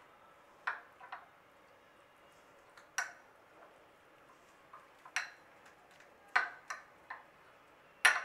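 A metal spoon clinking against a glass dish while stirring spiced raw chicken mince. There are about eight sharp clinks at uneven intervals, the loudest near the end.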